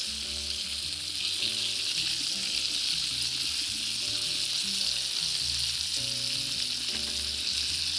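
Lamb rib chops and sliced garlic sizzling steadily in hot oil in a nonstick frying pan as they brown, with pieces moved about by tongs. Soft background music sits underneath.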